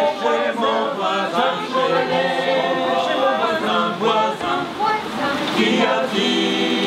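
A group of men's and women's voices singing a song together in chorus.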